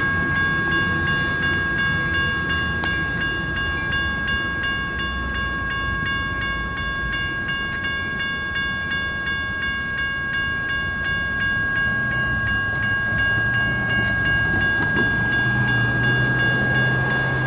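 Railroad grade-crossing warning bell ringing steadily while the gate arms rise after the train has cleared, over a continuous low rumble.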